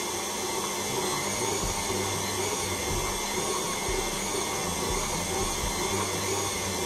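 Electric stand mixer running steadily with its wire whisk, whipping Swiss meringue buttercream as butter is added. The mixture is turning from curdled back into smooth frosting.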